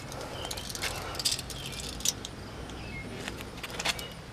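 Scattered light clicks and metallic rattles from a steel tape measure being handled, its extended blade held against the truck's wheel arch, over a faint steady hum.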